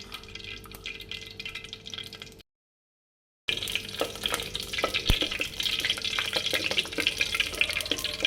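Whole spices (cinnamon, cloves, cardamom) crackling and sizzling in hot oil and ghee in a clay pot, with a few knocks of a stirring spoon. The sound cuts out completely for about a second, then returns louder.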